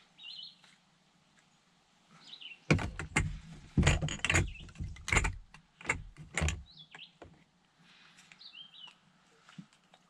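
A run of loud, irregular knocks and rustles from about three to seven seconds in, over small birds chirping every second or two.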